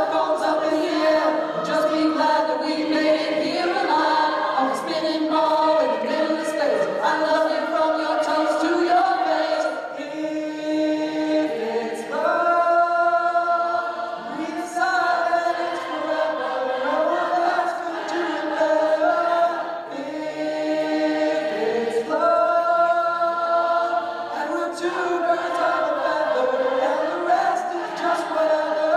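Large mixed choir singing in several parts, holding long chords that change every second or two, with no clear words.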